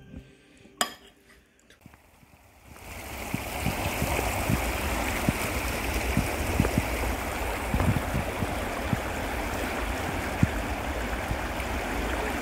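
Shallow stream water flowing over rocks, a steady rush that starts about three seconds in. Before it, one clink of a metal spoon against a ceramic bowl.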